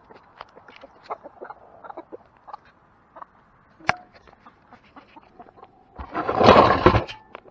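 Chickens clucking softly at their feed, a string of short clucks and small ticks. About six seconds in, a loud rustling noise lasts about a second.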